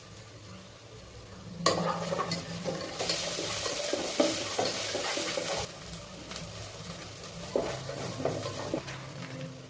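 Maggi noodles frying in a pan, stirred and scraped with a spatula: sharp scrapes and clicks on the pan, with a loud hiss of sizzling about three seconds in that drops back a couple of seconds later.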